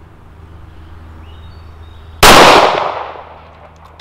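A single gunshot from a Smith & Wesson Governor revolver firing a .45 Long Colt cowboy-action round, about two seconds in. It is a sharp crack followed by a fading echo.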